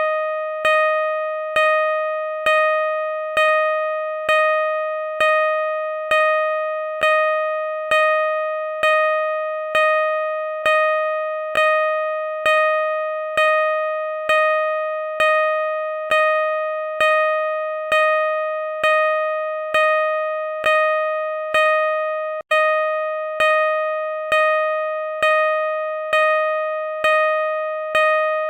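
Car reverse parking sensor beeping: one electronic tone, sounded again a little faster than once a second, each beep fading slightly into the next. There is a momentary break about two-thirds of the way through. The slow, even rate is what a parking sensor gives when the obstacle is still some way behind the car.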